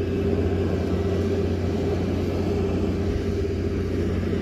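A steady, low mechanical hum with a constant tone, as of a motor or engine running without change.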